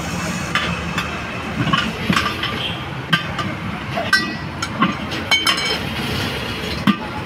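Steel tyre levers clinking and scraping against a steel wheel rim as a car tyre's bead is levered over the rim by hand: a scattered series of sharp metallic clicks, some with a brief ring, over a steady background hum.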